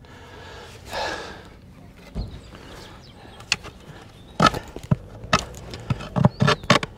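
Steel garden spade being driven into the wet clay floor of a trench: a heavy breath about a second in, then, after a dull thump, a quick run of about eight sharp scraping strikes as the blade chops down into the soil.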